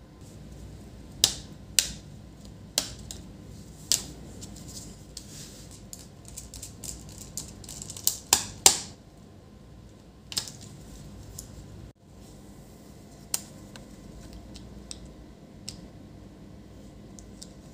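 Irregular sharp clicks and taps of a laptop being put back together: the motherboard fitted into its plastic and metal palmrest case and screwed down with a small screwdriver, with a cluster of louder clicks about eight seconds in.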